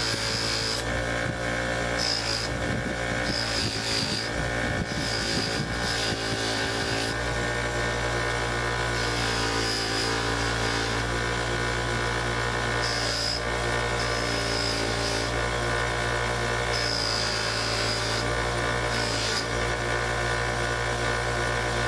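Six-inch bench buffer running steadily with a motor hum while a small brass piece is polished against its cloth wheel. A high whine comes and goes every second or two.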